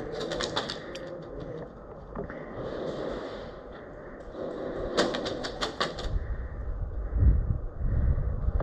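Airsoft gun firing two short bursts of rapid clicks, one at the start and one about five seconds in, with a low rumble near the end.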